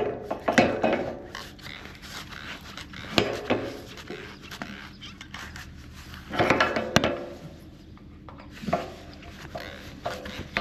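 Hand grease gun being coupled to and pumped on grease fittings of a header trailer's wheels and tie rods: scattered metal clicks, knocks and scraping rubs, with louder clusters about a third of a second in, at about three seconds and again from about six to seven seconds.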